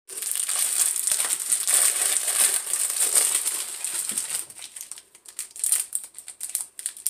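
Plastic wrappers of fun-size Butterfinger candy bars crinkling as they are torn open and peeled off by hand. A dense rustle runs for about four and a half seconds, then thins to scattered crackles.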